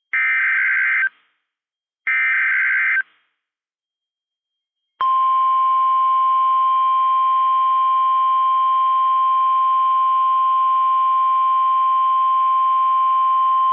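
NOAA Weather Radio emergency alert signal: two one-second bursts of warbling digital data tones (the SAME header repeats), then about five seconds in a single steady, loud warning alert tone starts and holds, signalling a warning-level alert, here a tornado warning.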